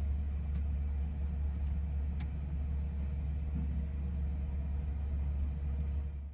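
Steady low rumbling drone of heavy machinery, even throughout, with a few faint ticks over it.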